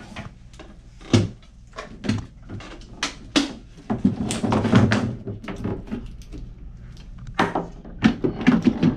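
Handling noise from a full-face helmet with attached hoses as it is lifted out of a hard-shell case and set down on a wooden table: a string of clicks, knocks and rustles, with louder knocks near the end.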